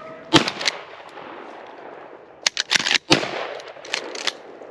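Two close, loud shots from a pump-action shotgun, about three seconds apart. A quick run of sharp clacks comes just before the second shot and a couple more after it.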